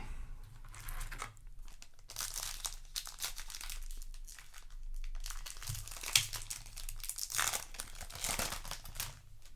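Foil wrapper of a Yu-Gi-Oh! booster pack crinkling as it is handled, in spells, with louder rustles about two, six and eight seconds in.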